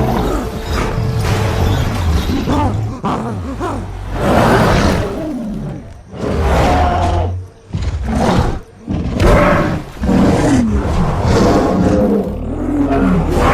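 A string of loud gorilla-style roars and growls, used as creature sound effects: several separate calls, each a second or two long, with brief breaks between them.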